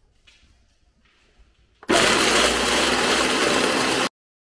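A Ninja countertop blender starts about two seconds in and runs loudly and steadily for about two seconds, blending dog food and water into puppy mush, then stops suddenly.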